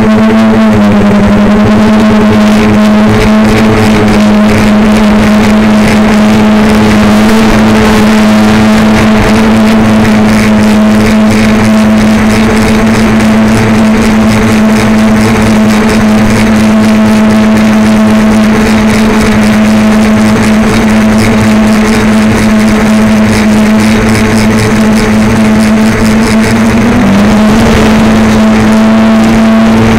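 DJI Flame Wheel F450 quadcopter's motors and propellers, heard loud and close from the onboard camera, droning at a steady pitch in flight. The pitch steps down slightly about a second in and back up near the end as the throttle changes.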